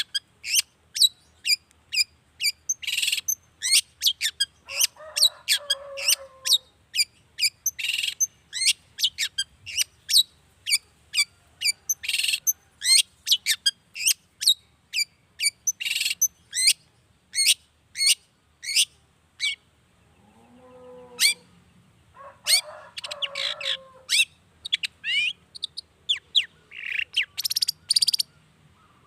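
Long-tailed shrike (cendet) singing hard: fast runs of short, sharp high notes, twice broken by lower, scratchy phrases.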